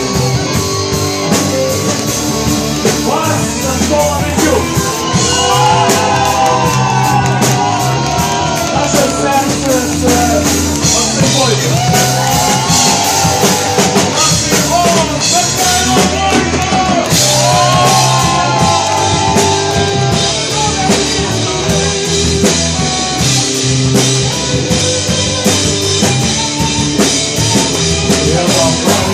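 Live rock band playing loudly and steadily: drum kit and bass under a lead melody line that bends up and down in pitch.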